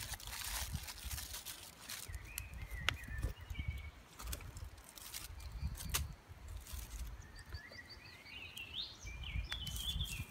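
Outdoor ambience with low wind rumble on the microphone and a small bird singing in short chirping phrases, twice. Aluminium foil crinkles briefly at the start, and a few sharp clicks come from the fire being tended.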